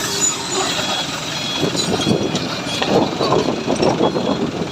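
A heavy machine's engine running, with uneven surges of louder noise in the second half.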